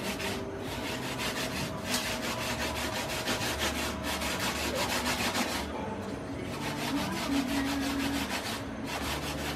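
Rapid, rhythmic scraping, several strokes a second, from hand work with a knife and fish at a kitchen counter. It breaks off briefly about six seconds in and again near the end.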